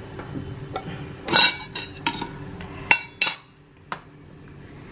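Lid of a stainless steel tin being worked off and set down on the counter: a handful of metal clinks and clatters, the loudest two close together about three seconds in, each ringing briefly.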